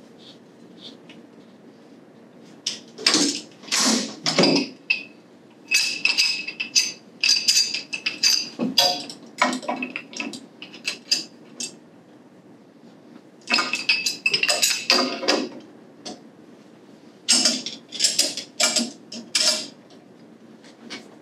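Pipe wrench tightening a threaded steel pipe union: clusters of metal clinks and scrapes as the jaws bite and are reset on the fitting, in four bouts with short pauses between.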